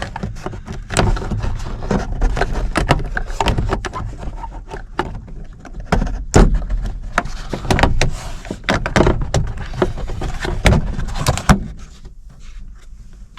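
Instrument cluster and dash parts being handled and fitted back together: a busy run of clicks, knocks and rattles that dies down near the end.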